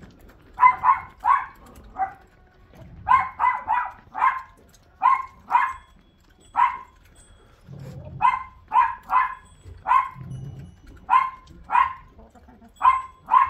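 A dog barking again and again, in quick runs of two to four barks with short pauses between.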